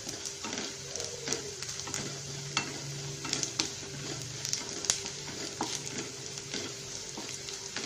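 Sliced onions sizzling in hot oil in a nonstick pan, just starting to brown, while a wooden spatula stirs them with frequent light scrapes and taps against the pan.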